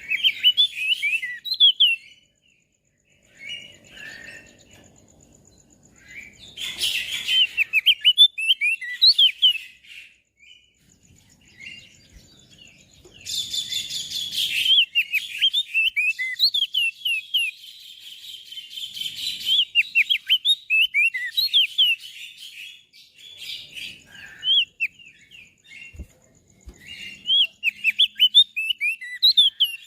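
Crested heleia (opior jambul) singing in repeated bursts of rapid, high, twittering notes, with short pauses between the phrases.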